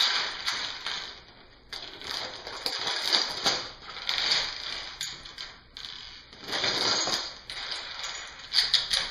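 Plastic Lego bricks clattering and a plastic bag crinkling as handfuls of bricks are put back into the bag, in several bursts.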